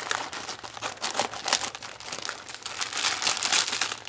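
Plastic mailing bag crinkling and tearing as it is opened by hand, a dense run of crackles that gets louder near the end.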